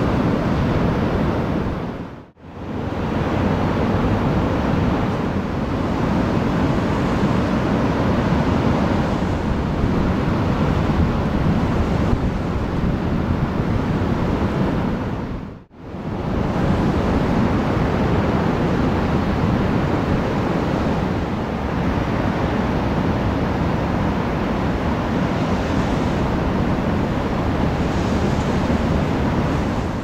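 Large ocean waves breaking: a steady, dense rush of surf. It drops away briefly and fades back in twice, about two seconds in and again about sixteen seconds in.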